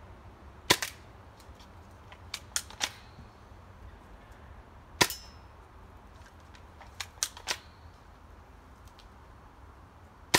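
Cheap spring-powered airsoft sniper rifle fired three times, sharp cracks about four and a half seconds apart, with groups of lighter clicks in between.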